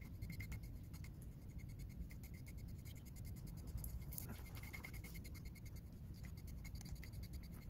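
Deshedding tool's metal comb blade scratching through a short-haired dog's coat in quick, repeated strokes, pulling out loose moulting undercoat.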